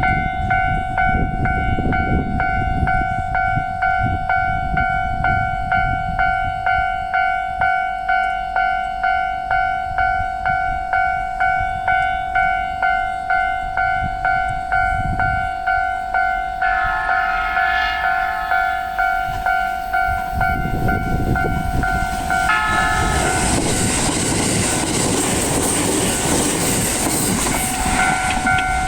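A Japanese railway level crossing's warning bell ringing in an even, repeating rhythm, about three strokes every two seconds. About twenty seconds in, a JR East E501 series electric train passes over the crossing for some eight seconds, a loud rush of wheels on rail over the still-ringing bell.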